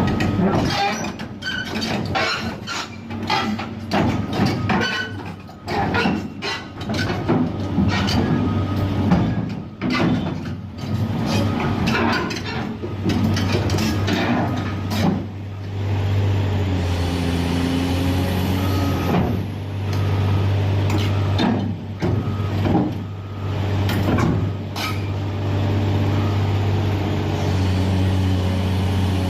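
Heavy diesel engine of a Caterpillar excavator running steadily, with repeated metallic clanks and knocks that come thick and fast in the first half and only now and then after that.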